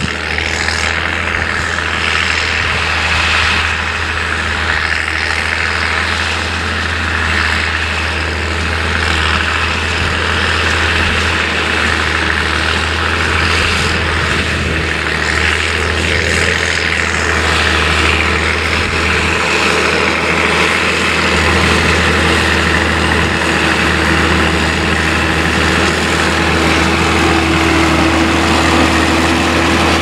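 Massey Ferguson 8480 tractor's six-cylinder diesel engine running steadily under the heavy load of pulling an eight-furrow Kverneland plough, growing gradually louder as it comes closer.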